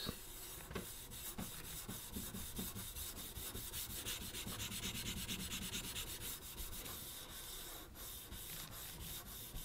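Sanding pad rubbed back and forth over a steel knife blade in faint, rapid strokes, working gun blue off the blade face around an etched maker's mark.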